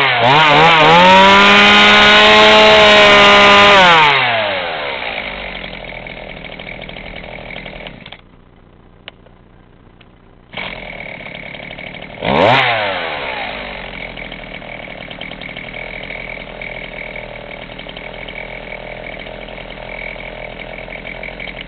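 Husqvarna 40 two-stroke chainsaw held at high revs for about four seconds, then dropping back to idle. About eight seconds in, the sound falls away for a couple of seconds before picking up again. About halfway a single quick blip of the throttle, after which it settles into a steady idle.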